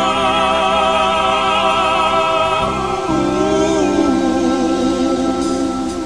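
Background music: a slow piece with a long-held, wavering melody over sustained low notes.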